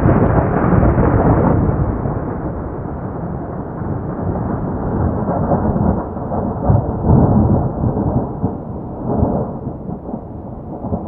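Rolling thunder: a long rumble that starts loud and slowly dies away, swelling again a few times in the second half.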